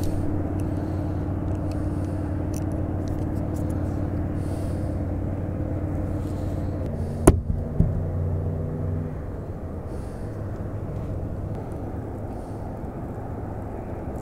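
Steady low hum of a boat motor; its pitch shifts about seven seconds in and it eases off a couple of seconds later. A single sharp click stands out near the middle.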